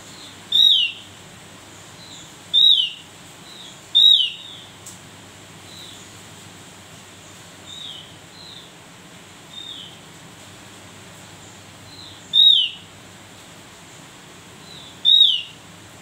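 Caged Javan grey-throated white-eye (opior jawa) calling: five loud, short, high notes that slur downward, spaced irregularly a few seconds apart, with softer notes of the same shape between them.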